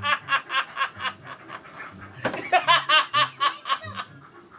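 A man laughing hysterically in rapid, high-pitched ha-ha pulses, about five a second. A first run trails off within the first second, then a second, louder burst of laughter breaks out about two seconds in and fades near the end.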